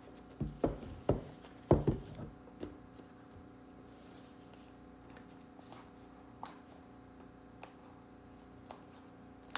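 Hands handling and prying at product packaging to get it open: a cluster of knocks and rustles in the first two seconds or so, then scattered faint clicks.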